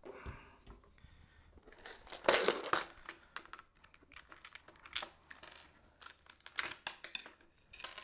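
Handling of parts on a tabletop: plastic packaging crinkling, loudest about two seconds in, then light clicks as small screws and an Allen wrench are taken from their plastic case and set down.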